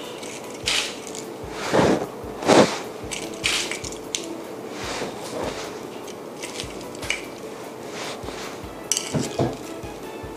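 Small clear plastic cups and crisp candied coconut balls handled on a plate: light clicks, taps and rustles as they are set down and arranged by hand, with a few heavier knocks about two seconds in and again near the end.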